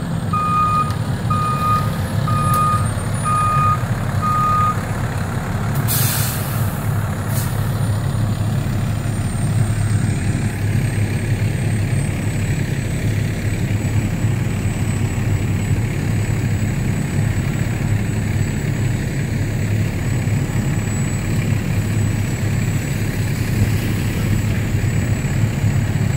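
Fire ladder truck's backup alarm beeping about three times every two seconds over its idling diesel engine. The beeping stops about five seconds in, then a short burst of air-brake hiss is followed by a second brief one as the truck comes to rest, and the engine keeps idling.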